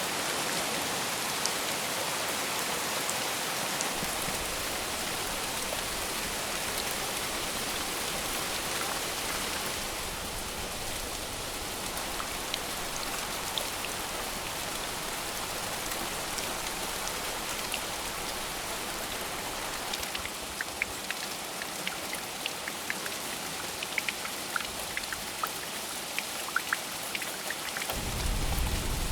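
Steady heavy rain, a dense even hiss. In the second half, single drops ticking sharply stand out, and near the end a short low rumble of thunder swells.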